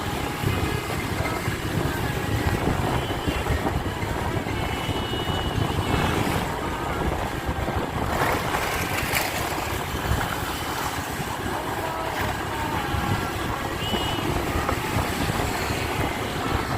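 Steady wind rumble on the microphone over the background noise of a crowded outdoor market, with faint distant voices mixed in.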